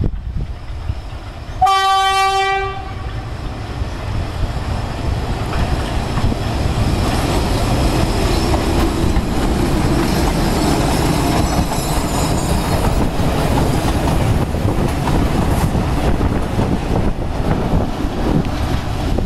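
GE U11B diesel-electric locomotive sounds its horn once, a single steady note lasting about a second. Then its engine and the wheels of the loaded ballast hopper cars run past with a loud, steady rumble and clickety-clack over the rail joints.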